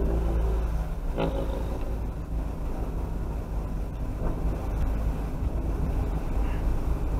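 Car engine and road rumble heard from inside the cabin as the car pulls away from a standstill and slowly gathers speed, with one brief sharper sound about a second in.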